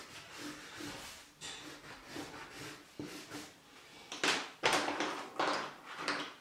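Wax crayon rubbing across paper in short repeated strokes. About four seconds in, louder clattering as a hand picks through a pile of crayons and pastels.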